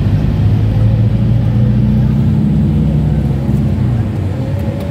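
Vehicle cabin noise while driving at a steady speed: the engine's low drone mixed with road and tyre noise, heard from inside the cabin.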